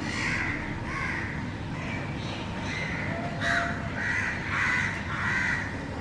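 Crows at a nest giving a string of short, harsh caws, about two a second. A young bird is gaping as it calls, like a fledgling begging.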